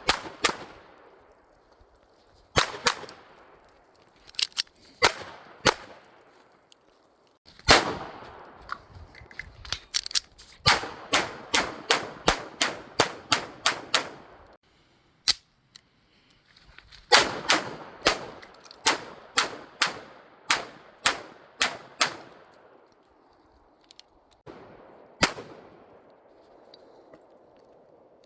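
Ruger LCP II Lite Rack .22 LR pocket pistol firing at the range: a few single shots, then two long strings of about ten shots each at roughly two to three shots a second, with pauses between, and a lone shot near the end.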